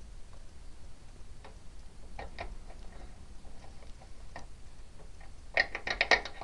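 Small plastic clicks and taps of a SATA cable connector being worked into a motherboard's SATA port inside a PC case. The taps are sparse at first, then a quick cluster of sharper clicks comes near the end.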